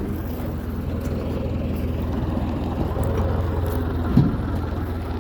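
A motor vehicle running steadily, with a continuous low engine and road noise. A single short, loud knock stands out about four seconds in.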